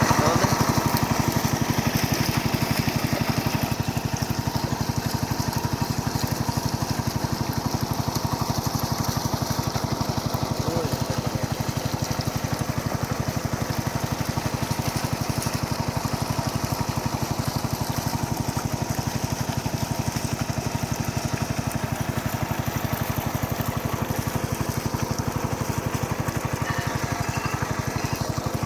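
A small engine running steadily at a constant speed, with a fast, even chugging beat.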